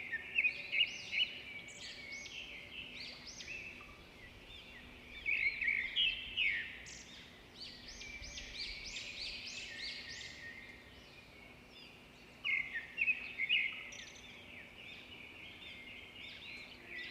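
Birds chirping and singing: many quick, overlapping high calls that come in louder flurries, about a second in, around five to seven seconds in, and again past twelve seconds, with softer twittering in between.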